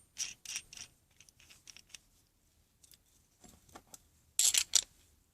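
Small metal clicks and ticks as a washer and nut are fitted and worked onto a coach bolt. There are a few light clicks at first, then a quick run of four or five louder clicks near the end.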